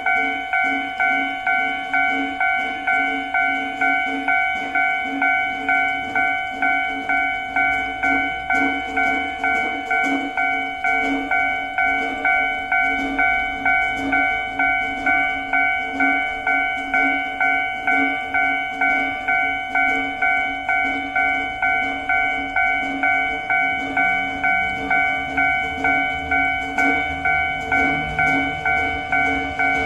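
Japanese railway level-crossing warning bell ringing steadily, an electronic clang at about two strikes a second. A low rumble of an approaching train builds beneath it in the second half.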